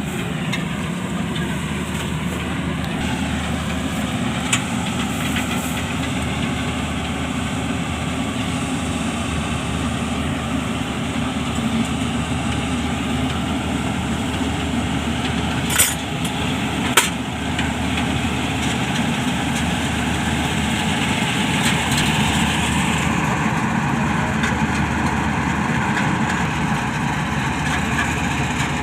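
Combine harvester's diesel engine running steadily at a constant speed, with two sharp clicks a little past halfway.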